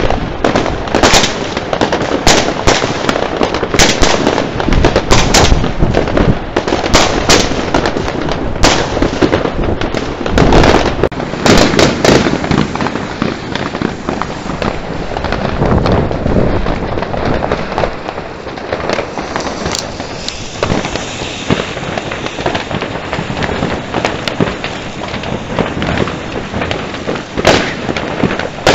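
Fireworks going off: many sharp bangs and cracks in quick succession for about the first twelve seconds, then a denser, more even crackling with fewer separate bangs.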